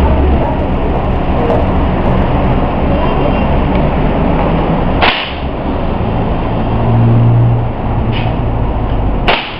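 Two sharp cracks, one about five seconds in and one near the end, typical of a homemade air rifle firing, over a loud steady rumble with a low hum.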